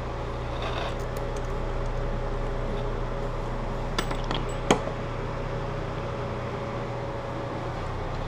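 Light clicks and clinks of small metal parts and tools being handled at a benchtop CNC lathe after the cut, with two sharper clinks about four and a half seconds in, over a steady background hum.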